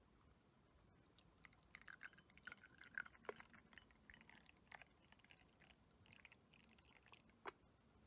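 Tea poured from a ceramic teapot into a porcelain cup: a faint trickle and splash of liquid that starts about two seconds in and runs for several seconds, followed by a light click near the end.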